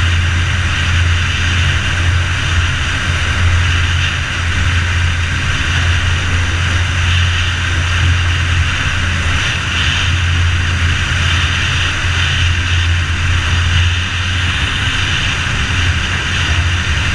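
The Rotax 912 four-cylinder four-stroke engine and three-bladed propeller of an ultralight trike running steadily: a constant low drone with an even hiss over it.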